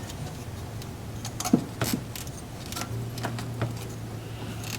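Scattered small clicks and taps of tools and metal parts being handled during reassembly, a few light knocks over a steady low hum.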